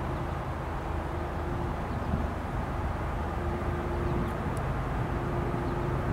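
Low, steady drone of a distant freight train's diesel locomotives approaching, growing slightly louder.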